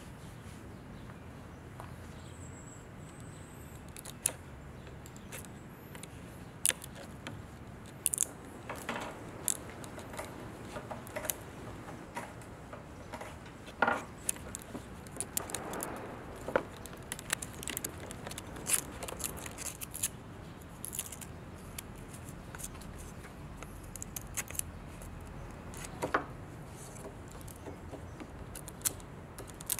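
Wood chisel chipping and scraping old veneer and finish off a plywood panel: scattered sharp clicks and short scrapes, with flakes dropping onto a wooden bench.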